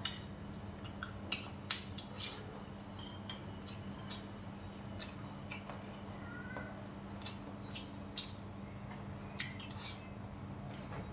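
Scattered light clicks and clinks of a metal spoon and chopsticks against a porcelain rice bowl, with soft chewing sounds, over a steady low hum.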